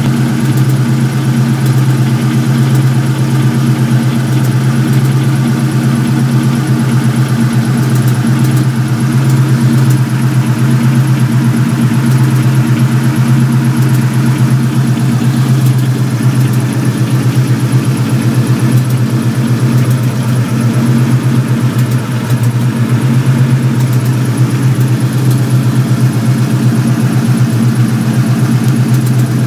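Ford Mustang Bullitt V8 running steadily at idle, with occasional faint pops over the engine note: the strange popping noise the owner is trying to trace.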